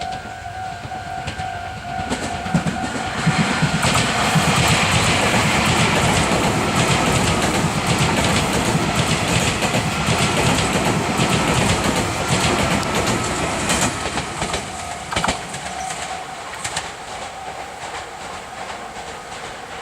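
Eight-car Meitetsu 2000 series μSKY train passing at speed through a level crossing, its wheels clattering in quick rhythm over the rail joints for about twelve seconds. The crossing's warning bell rings at the start, is drowned out while the train goes by, and is heard again as the train clears.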